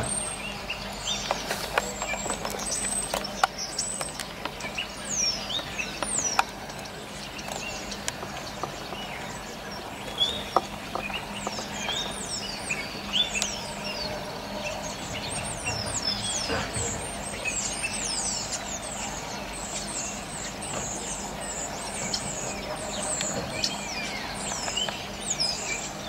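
A flock of common starlings calling all together: a continuous chatter of many short, downward-sliding whistles.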